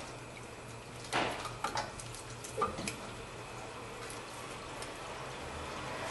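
A few light metallic knocks and scrapes, in three short clusters about one to three seconds in, as the front brake caliper is slid over the new pads and seated. A faint steady hum sits under them.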